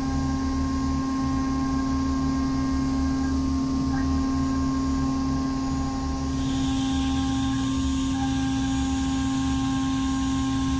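Brother Speedio W1000Xd2 CNC machining center milling aluminium with a 3 mm carbide endmill, its spindle at 16,000 rpm, under flood coolant. The cut makes a steady hum with a strong steady tone and fainter higher tones. About six seconds in, a higher hiss gets louder.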